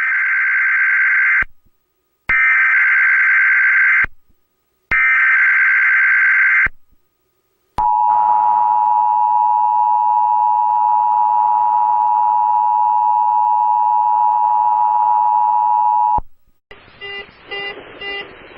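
Emergency Alert System tones: three harsh warbling data bursts of the SAME header, each under two seconds with short gaps, then the steady two-tone EAS attention signal held for about eight seconds before it cuts off suddenly, signalling that an emergency warning, here a tsunami warning, is about to be read. Short broken sounds follow near the end.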